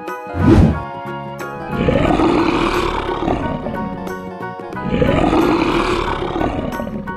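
Two long lion roars, each swelling up and dying away over about two seconds, played over background music, with a short loud burst of sound about half a second in.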